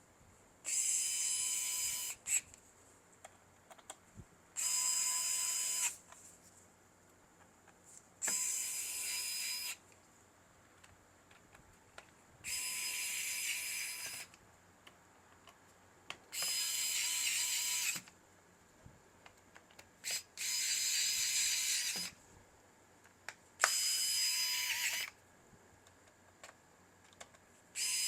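A small electric screwdriver runs in short bursts of about a second and a half, roughly every four seconds, driving the laptop's case screws. A few small clicks fall between the bursts.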